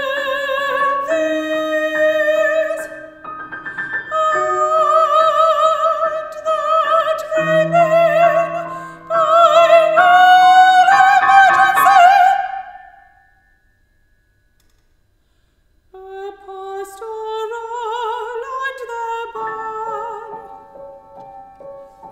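Mezzo-soprano singing an art song with piano accompaniment, the voice's notes carrying wide vibrato and climbing to a loud high held note about twelve seconds in. About three seconds of silence follow before voice and piano resume more softly.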